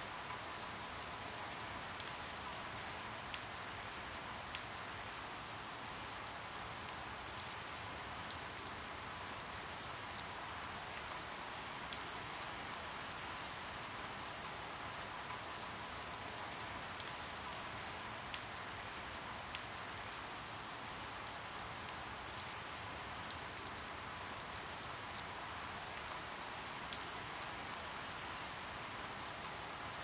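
Steady rainfall, an even hiss of many drops, with scattered close drops ticking sharply every second or two.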